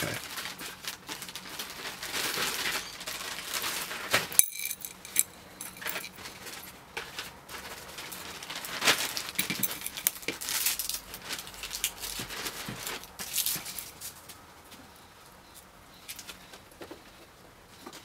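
Small metallic clicks and scrapes of an Allen key turning grub screws down into the pin chambers of a euro lock cylinder, with the cylinder being handled. One sharper metallic knock with a brief ring comes about four seconds in. The sounds thin out in the second half.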